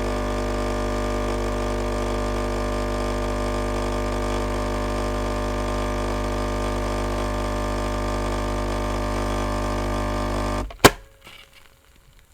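Dolce Gusto capsule coffee machine's pump humming steadily as it brews. It cuts off suddenly near the end, and a single sharp click follows.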